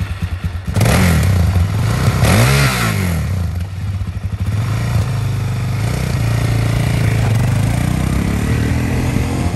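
2005 Suzuki LTZ400's single-cylinder four-stroke engine idling, revved twice in quick rises and falls in the first three seconds, then pulling away under throttle with its pitch climbing toward the end.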